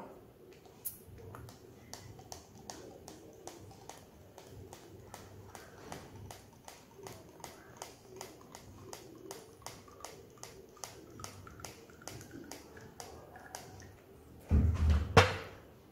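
Plastic pump dispenser on a bottle of grapeseed oil pressed over and over, clicking about two to three times a second as it squirts carrier oil into a small glass bottle. A louder thump near the end.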